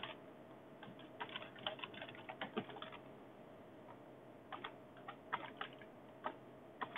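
Faint computer keyboard typing: a quick run of keystrokes over the first few seconds, then scattered single keystrokes later on.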